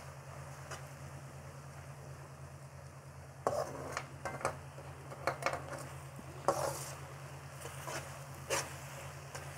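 Slotted spatula stirring and tossing instant noodles in a non-stick wok, scraping against the pan in a series of short strokes that start about a third of the way in. A light sizzle runs under the strokes.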